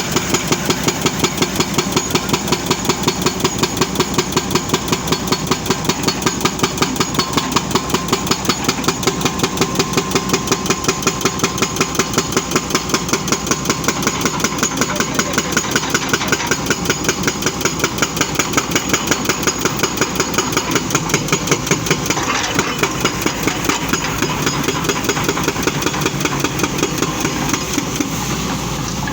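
Excavator working, its diesel engine running steadily with a regular pulse about three times a second. The pulsing becomes less even about 22 seconds in.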